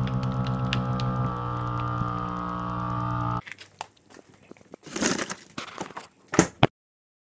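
Countertop vacuum sealer's pump running with a steady hum that drops slightly in pitch about a second in and cuts off after about three and a half seconds. Then the plastic vacuum bag crinkles as it is handled, with two louder rustles near the end.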